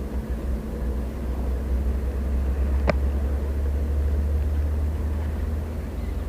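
A steady low rumble, with one sharp click about three seconds in.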